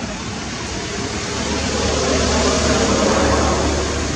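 A motor vehicle passing by: its engine and road noise swell to a peak about three seconds in, then fade.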